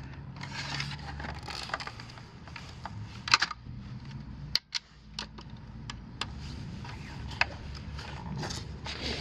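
Plastic housing parts of a Polaris 3900 Sport pool cleaner head being handled and pushed together by hand: scattered clicks and knocks, the loudest about three seconds in, over a low steady hum.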